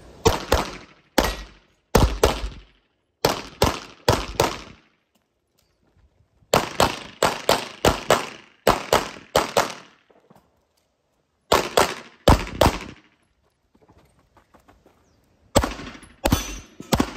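CZ Shadow 2 pistol fired in quick strings of two to five shots, with silent gaps of a second or two between the strings, each shot ringing briefly.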